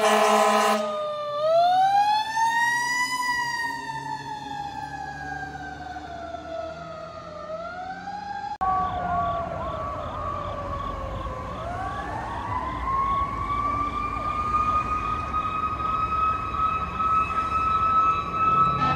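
Fire apparatus sirens: a horn blast stops about a second in, then a siren winds up and slowly falls away, rising again near the middle. After that it winds down, gives a few short yelps, then winds up again and holds a high steady note.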